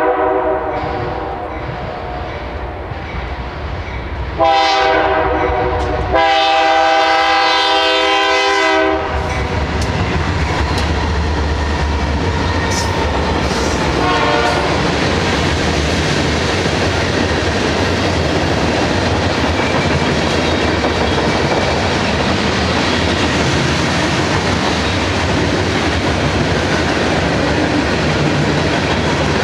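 BNSF GE freight locomotive leading a freight train, sounding its multi-note air horn in long blasts for the crossing, with a brief break in the last. About nine seconds in the horn stops and the train passes close by: a steady rumble with wheels clicking over the rail joints.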